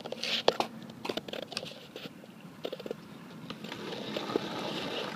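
Skateboard wheels rolling on concrete, the rolling noise growing louder over the last second or two as the board comes closer. Scattered sharp clicks and knocks come earlier.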